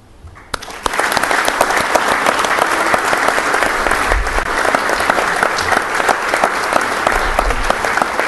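Audience applauding, starting about half a second in and keeping on steadily.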